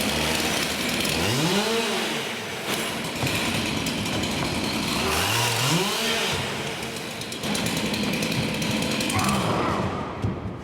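Two-stroke chainsaw running hard, its engine revved up and let back down twice, about a second in and again about five seconds in, over constant rattling mechanical noise.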